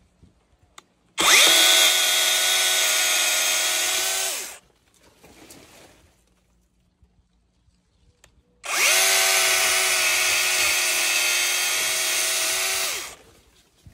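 Vanpore cordless mini chainsaw's electric motor running twice, each run about three to four seconds long, its whine rising as it spins up and dropping away as it stops, while the chain cuts through palm fronds.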